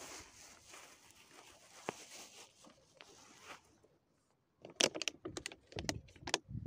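Plastic carrier bag rustling as it is handled, then, after a short gap, a quick run of sharp crackles and clicks from a plastic water bottle being picked up and handled.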